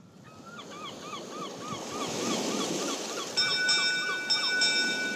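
Surf-like wash of waves swelling in volume, with a run of quick, evenly spaced chirps about three a second over it. About three seconds in, a high bell-like chime enters, holding several steady tones with a light pulsing shimmer on top.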